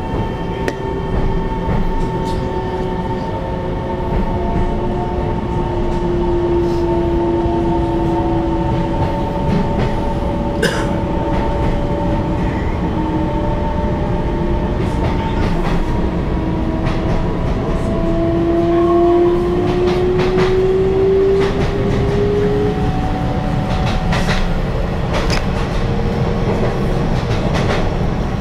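Taiwan Railway EMU700 electric multiple unit heard from inside the cabin as it runs out of the station and picks up speed. Electric traction motors whine in several tones that slowly glide in pitch over a steady running rumble, with scattered sharp clicks from the wheels over rail joints.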